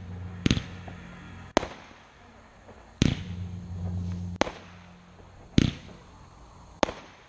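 Fireworks shells bursting overhead: six sharp bangs about a second or so apart, some with a short crackling tail. A low hum comes and goes underneath.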